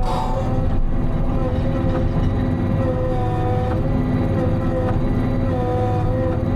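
Timberjack 608 harvester running, heard from inside its cab: a steady engine drone with a steady whine over it.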